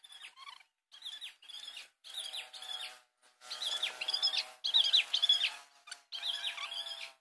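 Birds chirping: a quick series of short calls with falling notes, loudest in the middle.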